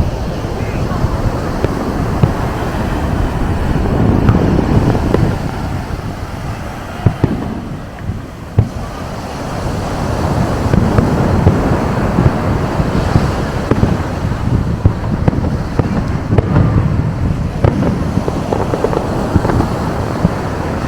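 Fireworks display: a dense, continuous run of booming bursts and crackle, with two sharp bangs standing out about seven and eight and a half seconds in.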